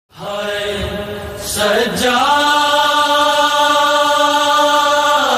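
Soz-o-salam (Shia Muharram elegy) opening: a male voice holding a long wordless note. It wavers briefly about one and a half seconds in, then holds steady.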